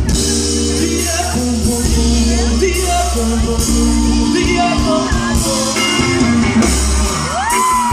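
Reggae-pop band music in a gap between sung lines, with steady bass notes under held chords.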